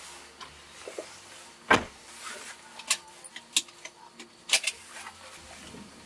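A few sharp clicks and knocks inside a car's cabin, the loudest about two seconds in, over a faint steady hiss.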